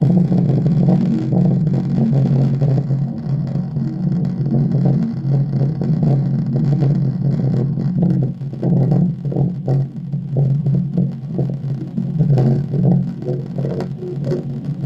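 Loud, steady rumbling noise with a crackling flicker, from a boosted playback of a recording of a room's ambient sound; the rumble sits mostly in the low and lower-middle range.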